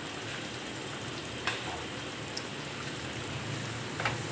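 Whole tandoori-marinated chicken sizzling steadily in oil and its own juices in a frying pan. There are two faint taps, one about a second and a half in and one near the end as a spoon goes into the pan.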